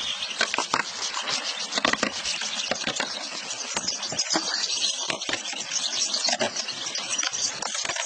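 A large mass of European goldfinches: a dense, unbroken crackle of many small high chirping calls mixed with fluttering wings.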